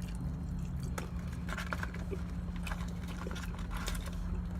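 Close-up chewing with wet lip-smacking clicks scattered irregularly through it, over a steady low hum.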